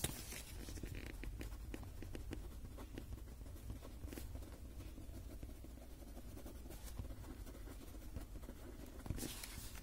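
Faint scratching of a fine-tip pen writing on a paper tile as a name and date are signed, starting with a light tap as the tile is turned over and set down.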